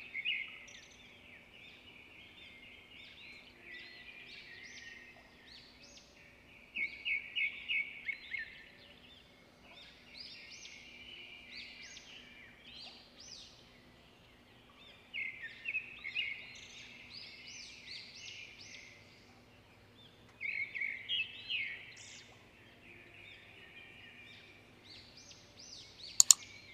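Birds chirping and singing in short phrases of quick, high notes that come every few seconds, with a faint steady hum underneath.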